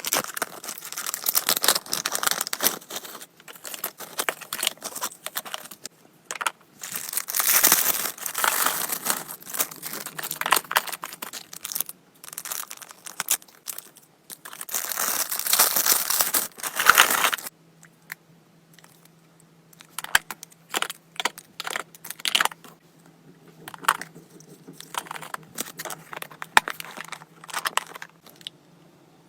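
Packaging being crinkled and torn while it is handled, dense and continuous for the first 17 seconds or so. After that come scattered light clicks and taps.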